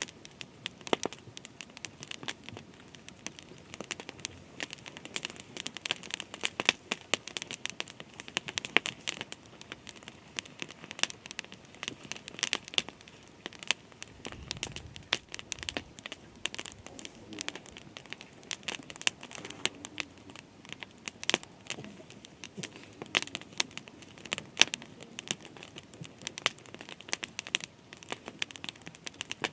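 Dense, irregular crackling and rustling, many small clicks in quick succession, with a brief low rumble about halfway through.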